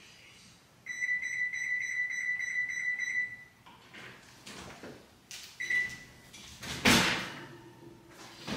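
Electric oven's control panel beeping as it is set to preheat: a pulsing electronic beep lasting about two and a half seconds, then one short beep a few seconds later. Near the end come brief rustling knocks of things being handled.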